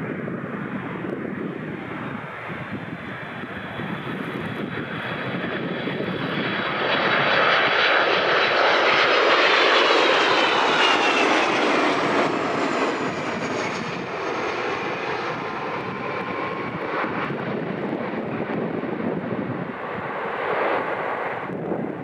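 Airbus A330 jet engines as the airliner lands, the noise swelling to its loudest as it passes about halfway through, with a whine that slides down in pitch as it goes by, then a steadier, quieter rumble as it rolls down the runway.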